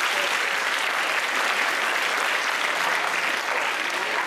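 Audience applauding steadily at the close of a performance.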